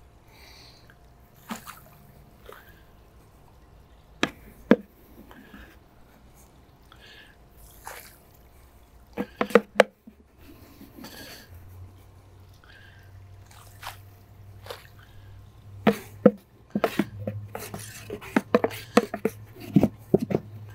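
Scattered knocks, clicks and small splashes as borate powder is scooped from a plastic bucket and broadcast by hand into a swimming pool. The knocks come thicker in the last few seconds, and a low steady hum comes in about halfway.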